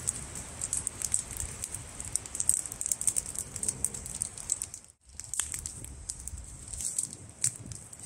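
Small campfire of wet, partly frozen wood crackling, with dense irregular pops and snaps over a low rumble, broken off briefly about five seconds in.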